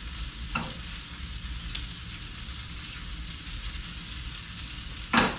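Hot oil sizzling steadily in a frying pan as a sesame-crusted African pompano fillet sears. There is a faint click about half a second in and a sharp clack near the end.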